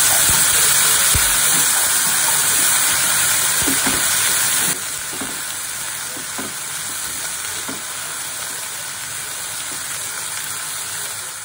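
Freshly added water hissing and sizzling in a hot pan of drumstick (moringa pod) pieces, with a spatula stirring and scraping through them. The sizzle drops abruptly in level about five seconds in.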